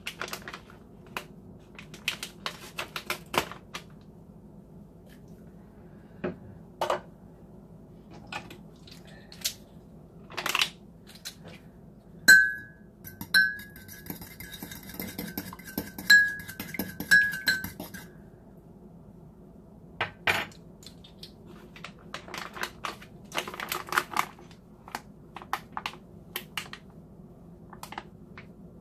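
A metal fork beating an egg in a ceramic mug: from about 12 seconds in, for some six seconds, quick strokes clink against the mug's sides, which ring with a clear pitch. Scattered taps and clicks of utensils and packaging being handled come before and after.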